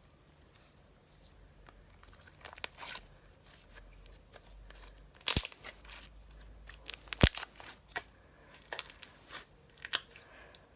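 Stretchy slime being worked in the hands, making irregular sticky pops and crackles. The loudest snaps come about five and seven seconds in.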